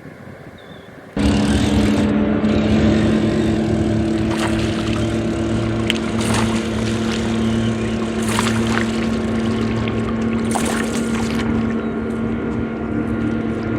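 A boat's outboard motor running steadily, over wind and water noise. It cuts in suddenly about a second in.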